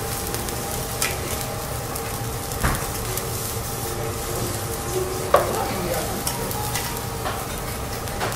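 Fried rice sizzling on a steel teppanyaki griddle while metal spatulas scrape and clack against the plate, with a few sharp clacks, the loudest about five seconds in.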